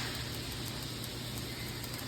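Stick welding arc crackling steadily as an E7018 rod lays a cap pass on a pipe joint.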